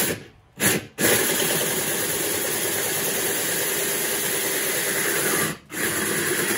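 DeWalt cordless drill with a 3-inch hole saw cutting through a cured fiberglass-and-resin mold shell. It runs in steady stretches, stopping briefly near the start and again about two-thirds through.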